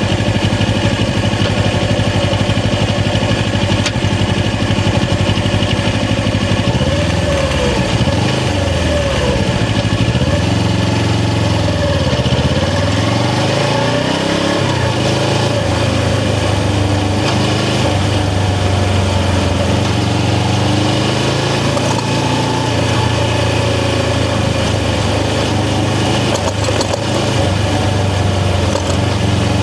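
Suzuki GS500's air-cooled parallel-twin engine running. Its note is steady at first, then rises and falls several times through the middle, then settles to a steady note again.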